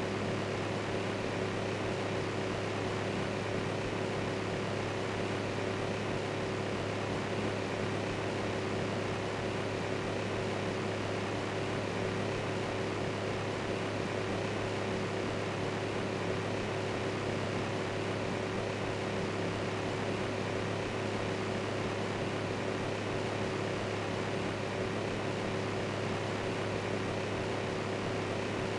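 Electric fan running steadily: an even rush of air with a constant low hum and a faint steady tone, unchanging throughout.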